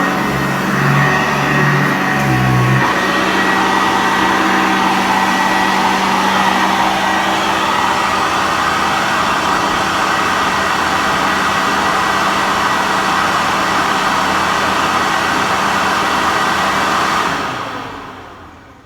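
Sanitaire upright vacuum cleaner running on carpet: a steady motor whine and hum with its brush roll. Near the end it winds down and fades out.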